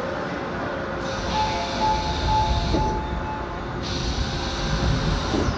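Seoul Metro 7000-series subway train running on the rails: a steady low rumble with a faint steady whine, and a higher hiss that comes in about a second in, drops out just before four seconds, then returns.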